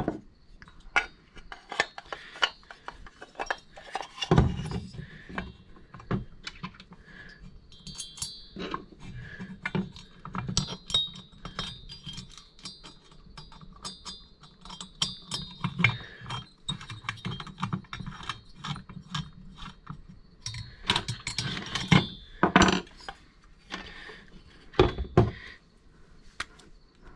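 Bare metal chainsaw cylinder and crankcase half being handled and fitted together on a workbench: a run of small clicks, clinks and knocks, with a few heavier knocks as the parts are set down.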